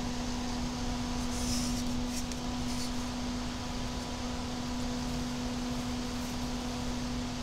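An EK-Vardar F4-120ER 120 mm PC cooling fan spinning at full speed, 2200 rpm, heard up close: a steady rush of air with a steady low hum running through it.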